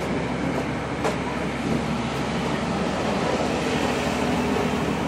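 Steady background rumble with a low hum, unbroken throughout, and one faint click about a second in.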